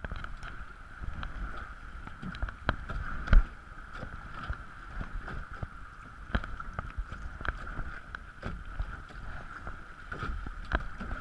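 Kayak paddle strokes splashing through choppy creek water beside a plastic kayak, with irregular splashes and knocks about once a second, the loudest about three seconds in, over a steady rush of water and wind rumble on the microphone.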